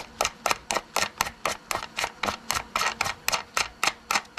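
Hand tool being turned on the threaded mandrel of a rivet nut (nutsert) set in a car's sheet-metal roof, giving steady sharp clicks at about four a second.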